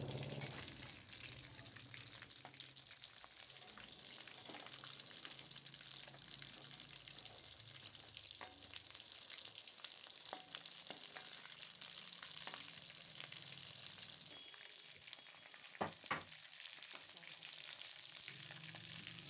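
Potato patties deep-frying in hot oil in a metal kadhai, a steady sizzle, with a metal skimmer scraping and clicking against the pan as they are turned. Two sharp clinks about sixteen seconds in are the loudest sounds.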